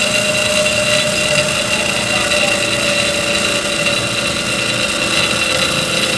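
Horizontal band saw machinery running, a steady mechanical hum with a constant high whine.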